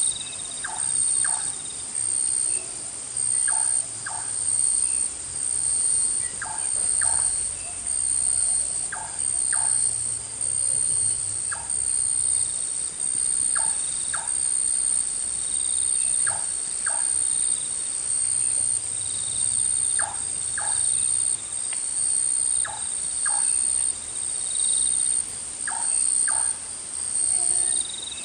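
Forest insects chirring in a continuous high shrill chorus that swells and fades every second or two. A short double call recurs lower down every two to three seconds.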